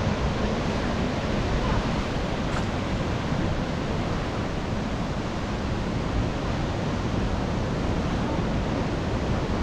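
Ocean surf and wind on the microphone, a steady rush with no separate breaks standing out.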